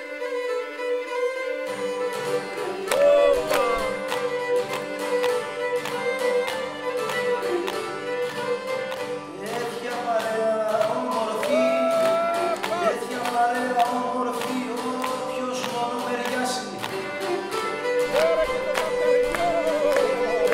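Cretan folk music: a bowed fiddle melody over strummed lute and guitar, with the strumming and bass coming in strongly about two seconds in.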